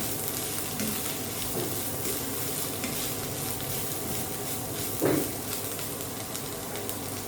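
Chopped bitter gourd and onion sizzling in hot oil in a pan while being stirred and sautéed, with a steady frying hiss and light ticks of the stirring spoon. About five seconds in, one louder, brief scrape.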